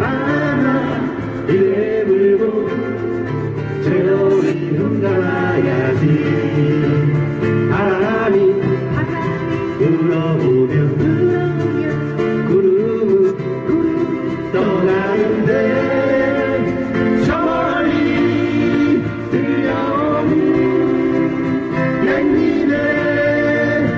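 Live acoustic band playing: singing over strummed acoustic guitars, a Korean folk-pop song.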